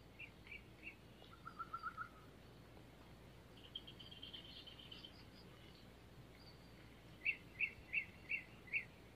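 Birds calling over a faint, quiet background: a few short high notes, a quick run of lower notes, a trill, then five louder calls evenly spaced near the end.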